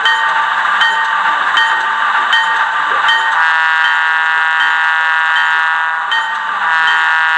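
The onboard sound system of a Bachmann S2 diesel switcher model, played through its small speaker while the locomotive stands still: a steady hissing diesel idle with a soft tick a little more than once a second. About halfway through, a buzzy horn blows once for a few seconds, stops briefly, then sounds again.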